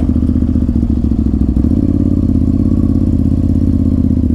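Ducati Monster 796's air-cooled L-twin engine idling steadily.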